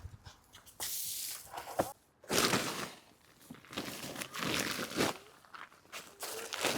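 Rustling and crunching of dry potato plants and potting soil being handled, in several bursts with a short pause about two seconds in.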